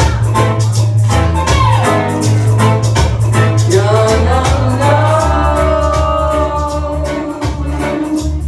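Latin dance music: a singing voice over a steady, repeating bass line and a fast, even percussion beat.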